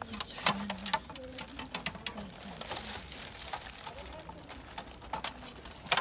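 A clear plastic cake stand in its cellophane wrap being handled, the wrap crackling and the plastic clicking, with faint voices in the background.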